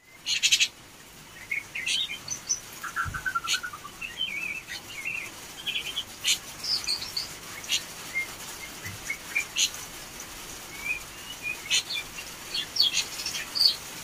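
Young hand-reared Taiwan white-eye twittering: many short high chirps and little warbling phrases come one after another, the soft running twitter ('ngeriwik') of a young bird starting to learn its song. A brief rattle of sharp clicks about half a second in is the loudest moment.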